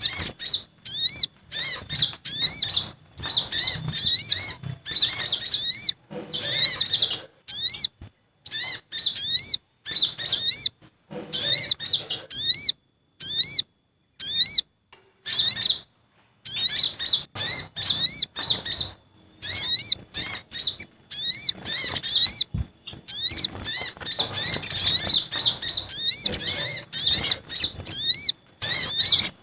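Sunbirds (sogon and konin) calling in a bird-lure recording: fast runs of high, thin chirps, each note curving up in pitch. The runs come in bursts of a second or two with brief pauses between them, and the calls are busy and agitated throughout.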